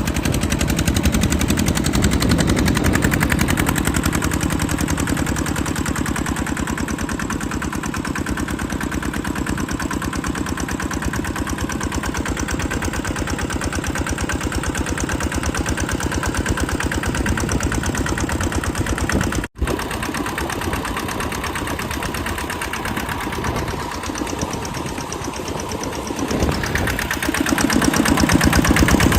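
Tha Le Thong TT110 single-cylinder diesel engine running steadily with fast, even exhaust beats while driving an 8-inch axial-flow water pump. The sound cuts out for an instant about two-thirds of the way through and is louder near the end.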